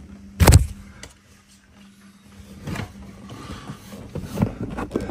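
Handling of a car's floor carpet and felt underlay: a loud knock about half a second in, then quieter rustling and a few light taps.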